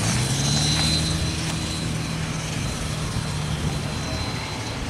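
NZR Ja class steam locomotive JA 1240 moving slowly away, giving a steady low drone with an even hiss and a faint high whine.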